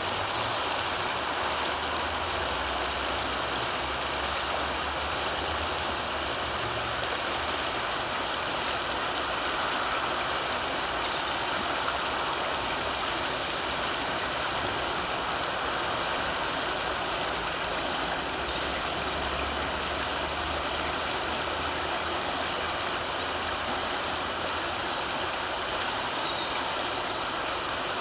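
Steady rush of flowing river water, with small birds calling in short, high chirps throughout, more often in the second half.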